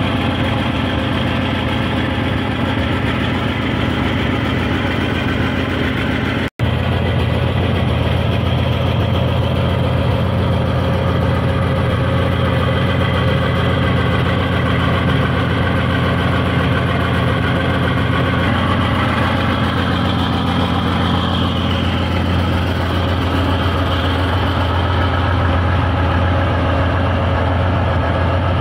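PT-91M main battle tank's V-12 diesel engine idling steadily with a deep, even rumble. The sound is broken once by a split-second gap about a quarter of the way in.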